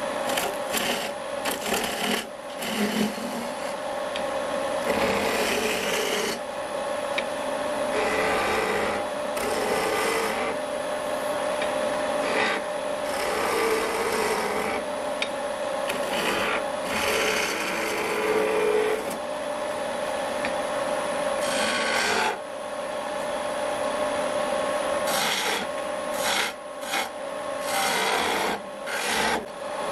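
Wood lathe running with a steady hum while a hand-held turning chisel cuts the spinning wooden spindle blank, in repeated shaving passes of a second or two each.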